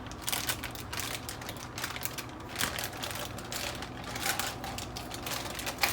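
Broccoli cuts being shaken out of a plastic bag into a pot: a quick, irregular patter of light taps and rustles, over a faint low hum.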